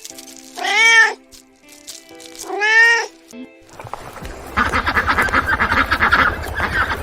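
Domestic cat meowing twice, each meow rising then falling in pitch. From about four seconds a dense, rapid pulsing sound takes over, with background music underneath.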